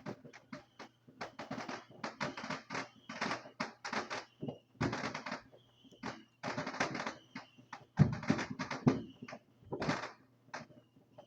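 Fireworks popping and crackling in quick, irregular bursts, with a few louder, deeper bangs later on.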